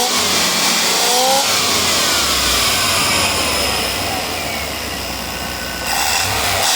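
Chevy 5.7 V8 engine revved and let back down, with a whistle near the throttle body that rises and falls with engine speed. The cause of the whistle is unknown to the owner.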